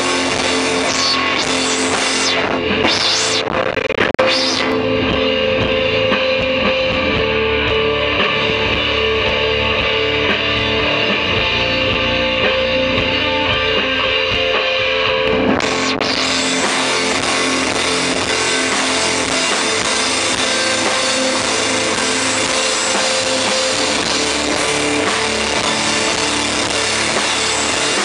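Rock band playing live on electric guitar, bass guitar and drum kit, with no singing. The sound grows fuller and brighter about sixteen seconds in.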